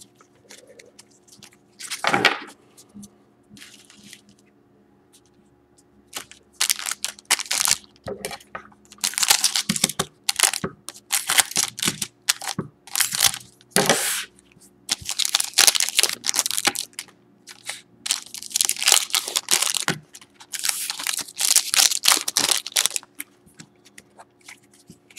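Shiny foil trading-card pack wrappers crinkling as they are cut with scissors and torn open, in repeated crackling bursts from about six seconds in.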